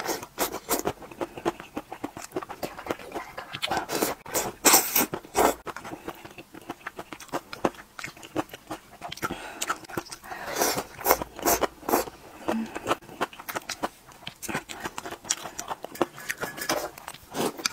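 Close-miked eating of noodle soup: several loud bouts of slurping noodles off a spoon, a few seconds apart, with quieter wet chewing and mouth sounds between.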